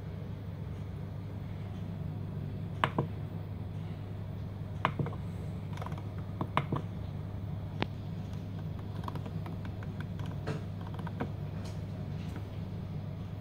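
Scattered clicks of a Pioneer XDJ-RX DJ unit's buttons and browse controls being worked, a handful of sharp single clicks followed by a quicker run of fainter ones, over a steady low hum.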